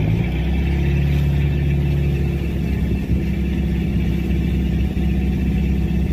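Fire-engine pump engine running steadily, a low drone feeding the hose, with a faint hiss of the water jet above it. Its note shifts slightly about two and a half seconds in.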